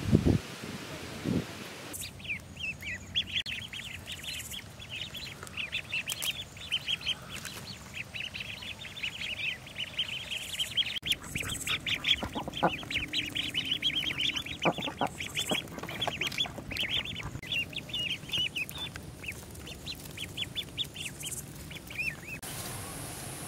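Ducklings peeping: a dense, continuous run of short high peeps, many a second, that starts about two seconds in and stops just before the end.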